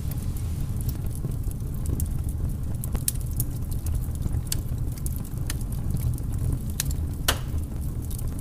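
Fire sound effect: a steady low rumble with irregular sharp crackles and pops, one louder pop about seven seconds in.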